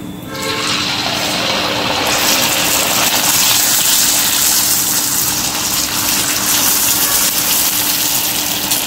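Semolina pani puri dough disc sizzling in hot oil in a kadhai. The frying hiss starts as the disc goes in, swells over the first couple of seconds, then holds steady while a slotted spoon works over it.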